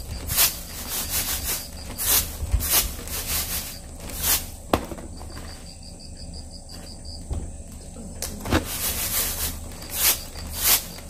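Sesame seeds swishing and rattling in a bamboo winnowing basket as it is tossed, a dry 'sak-sak' sound in irregular strokes, with a pause of a few seconds in the middle.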